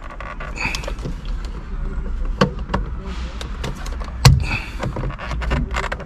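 Scattered small clicks and scrapes of a tool working the airbag's release spring behind a Volkswagen Golf Mk5 steering wheel, with one sharper knock about four seconds in, over a steady low rumble.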